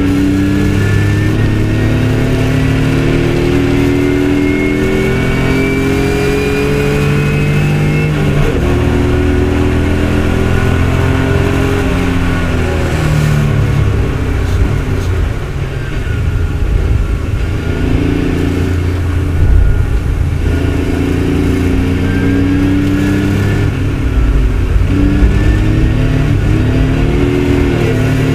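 Onboard sound of a BMW race car's engine under hard acceleration, its pitch climbing through the gears with short breaks at each upshift. Midway the pitch falls as the car brakes and downshifts, then it climbs through the gears again.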